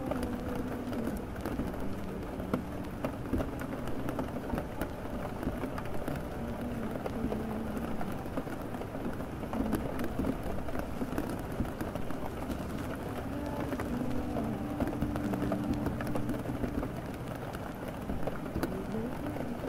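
Steady rain, with a muffled tune faintly underneath and wavering in and out.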